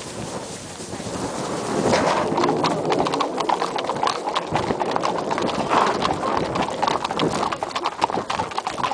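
Several horses walking on a tarmac lane, their hooves clip-clopping in an overlapping, irregular patter that starts about two seconds in.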